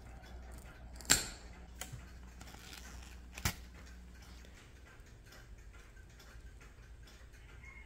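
Side cutters snipping at nylon-coated stainless steel wire: two sharp snaps about two and a half seconds apart, with a lighter click between them. Faint regular ticking continues underneath.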